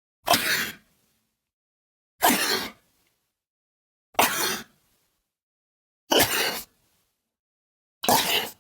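A person's voice making five short, sharp breathy vocal bursts, evenly spaced about two seconds apart. Each starts suddenly and trails off.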